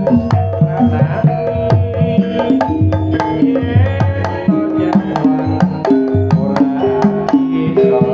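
Javanese jaranan ensemble music: kendang hand drums beating a quick, dense rhythm under pitched gamelan-style percussion playing a stepping melody, with no singing.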